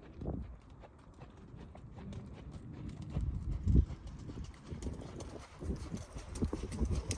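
Wind rumbling on the microphone, with a horse's hoofbeats on the ground as it works; the loudest thud comes a little before the middle.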